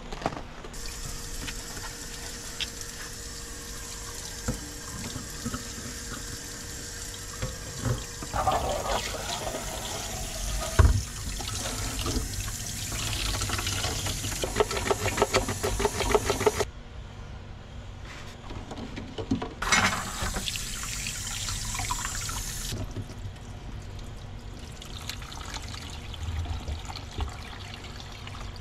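Kitchen tap running into a stainless steel sink and metal bowl while small eggs are washed by hand, with water splashing. The flow breaks off for a few seconds partway through and then runs again. A sharp knock comes about eleven seconds in.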